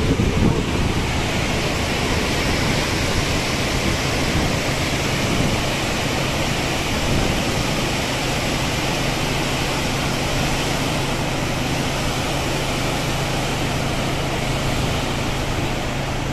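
A large waterfall's water pouring over a wide rock ledge, a steady rush of noise that holds level throughout.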